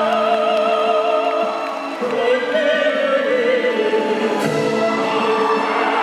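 Operatic singing with a wide vibrato, held long notes, over a live orchestra.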